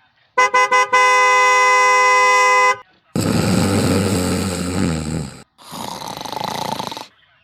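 A vehicle horn gives a few quick toots and then one long steady blast, followed by two long, loud snores.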